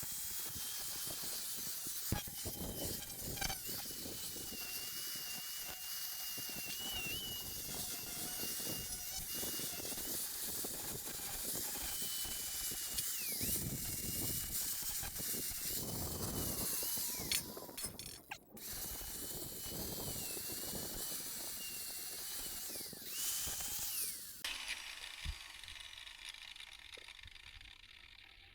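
Angle grinder fitted with a sanding pad, running under load as it sands welded metal corners and edges. Its high motor whine wavers as the pad is pressed into the work, and it drops out briefly about two-thirds of the way through. Near the end it is switched off and winds down.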